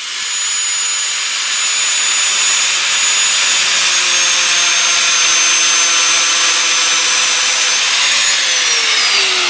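Angle grinder with a thin cut-off disc cutting the corner off a 3 mm mild steel sheet: a steady high whine over a harsh grinding hiss. About eight seconds in the pitch rises briefly, then falls as the motor winds down.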